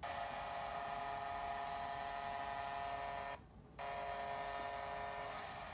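Hockey arena goal horn sounding in a long steady blast, heard through a TV speaker. It breaks off briefly about three and a half seconds in, then starts again.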